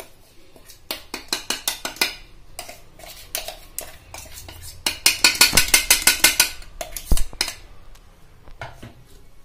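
Spoon and jar clicking and scraping against a stainless steel bowl as powder is tipped in and stirred. The clicks come in quick runs, densest about halfway through, with one louder knock soon after.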